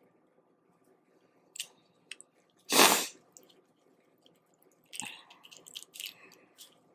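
Close-up eating sounds of a person working through boiled crawfish: a few faint mouth clicks, then one loud, sharp burst of breath a little under three seconds in. From about five seconds in comes a run of wet smacks and clicks of chewing and handling the shells.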